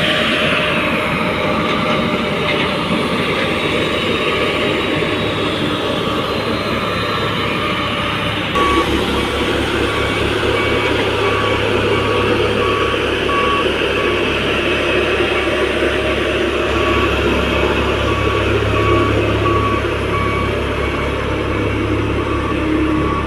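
Heavy diesel construction machine running steadily. From about a third of the way in, a reversing alarm beeps about once a second over a deeper engine rumble.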